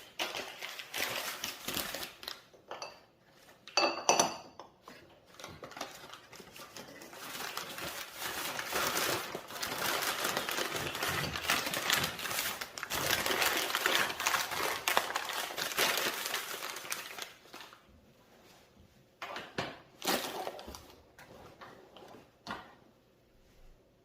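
Kitchen clatter of dishes and cookware being handled: scattered clinks, a loud ringing clink about four seconds in, then a long stretch of dense, steady clatter and rustle, with a few knocks near the end.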